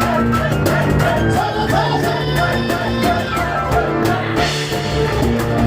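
Live instrumental music from a piano and cajón duo: piano playing over a fast, steady beat struck on the cajón.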